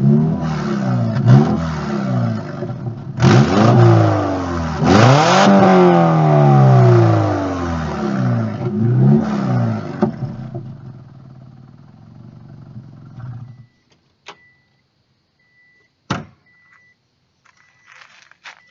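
1997 Subaru Legacy's EJ22 flat-four revved hard several times through an exhaust leak that makes it sound straight-piped, then settling to a quieter run and shutting off. Afterwards there are short high beeps and one sharp clack.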